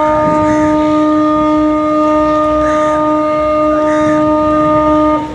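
A ship's horn sounding one long, loud, steady blast of about five seconds, a single held note with overtones that cuts off sharply near the end.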